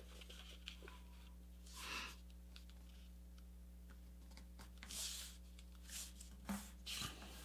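Faint rustling of a sheet of paper being folded and creased by hand: soft swishes about two seconds in, again around five seconds, and a few more near the end, over a faint steady hum.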